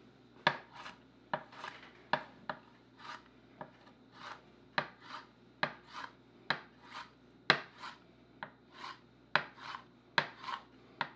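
Chef's knife julienning a green bell pepper on a wooden cutting board: steady, unhurried strokes, about two a second, each a short slice ending in a knock on the board.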